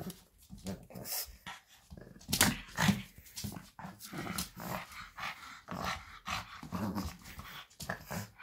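Pug puppy growling in short, irregular bursts while tugging on a rope toy in play, with two louder bursts around the two-and-a-half to three second mark.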